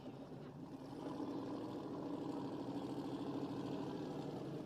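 Car engine idling steadily, growing louder about a second in.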